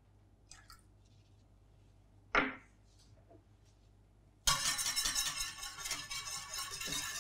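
A single sharp knock about two seconds in. Then, from about four and a half seconds, a wire whisk beats milk, cream and milk powder fast in a stainless-steel saucepan, the wires rattling steadily against the pan.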